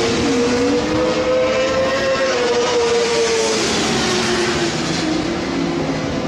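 Several distant racing engines running hard around the circuit, their notes overlapping. One dips sharply and recovers near the start, and the main note drops in pitch about four seconds in.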